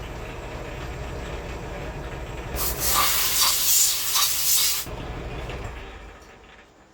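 Metal lathe running steadily while boring a chainsaw cylinder's combustion chamber, with a loud hiss for about two seconds in the middle; the lathe's hum then dies away near the end as it spins down.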